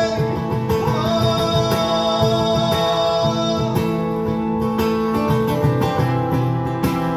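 Live song performance, instrumental passage: guitar playing with long held melody notes over it.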